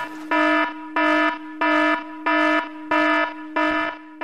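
Electronic warning-alarm sound effect beeping in an even rhythm, about one and a half buzzy beeps a second over a steady lower tone.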